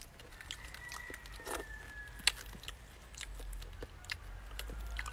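Close-up eating sounds: chewing and wet mouth clicks, with sharp clicks of fingers picking apart grilled tilapia. A faint high whistle-like tone slides slightly down from about half a second to two seconds in.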